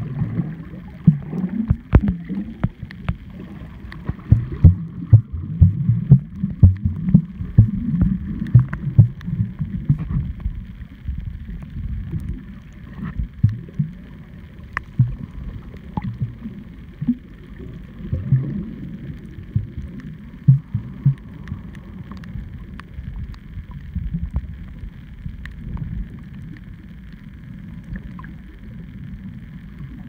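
Muffled underwater sound picked up by a camera held below the surface: low, uneven rushing and sloshing of water against the housing, with frequent irregular knocks and clicks.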